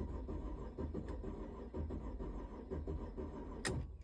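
2006 Mercedes SLK280's 3.0-litre V6 cranking on the starter motor for about four seconds without firing, ending with a sharp click. It is a crank-no-start: the scan tool shows no engine speed while cranking, which the owner takes for a failed crankshaft position sensor.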